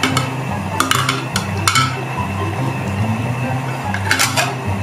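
A pot lid clinking against a steaming pot of shrimp and mussels, in a few sharp clinks: a cluster in the first two seconds and another near the end, over background music.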